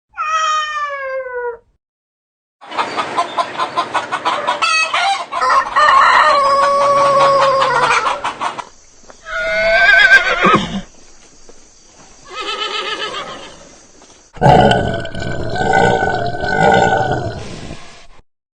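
A series of separate animal calls, one after another with short gaps: a falling call at the start, then a longer stretch of quick repeated calls running into a held call, and several shorter calls after.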